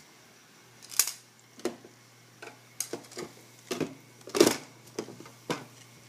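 Hard plastic clicks and knocks from handling a replacement filter cartridge and the filter housing of a water ionizer: about eight separate taps, the loudest a little past the middle.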